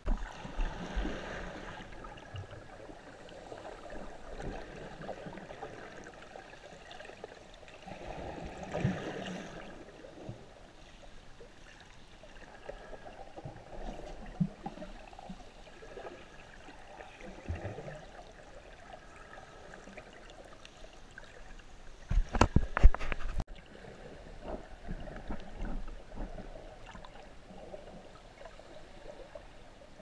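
Muffled water sloshing and gurgling heard through an underwater camera's housing, rising and falling in swells with soft thuds. A burst of loud knocks comes about two-thirds of the way through and cuts off abruptly.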